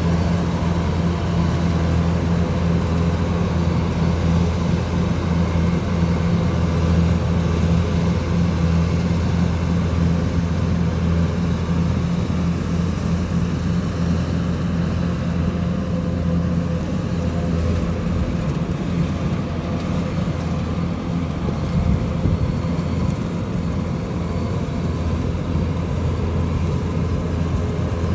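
Kubota DC-105X combine harvester's diesel engine running steadily as the machine cuts and threshes rice, a continuous low drone. The hum changes a little about two-thirds of the way through.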